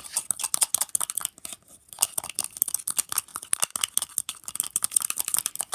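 Sticky soap-and-salt slime being mixed in a bowl with salt just added: a dense, irregular crackle of small sticky clicks and crunches, easing off briefly near the middle.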